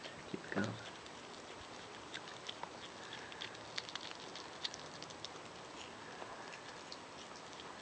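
Hedgehog chewing and crunching pieces of food: small irregular clicks and smacks over a steady hiss, with one brief louder sound with falling pitch about half a second in.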